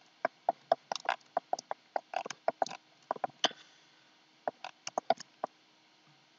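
Computer mouse clicking and its scroll wheel ticking: a quick, irregular run of small clicks that stops near the end.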